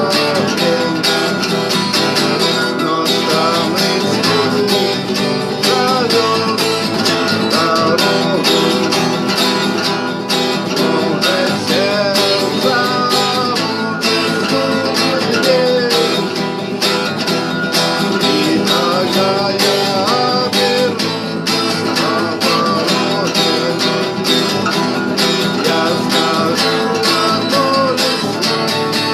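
Guitar music: an acoustic guitar playing steadily throughout.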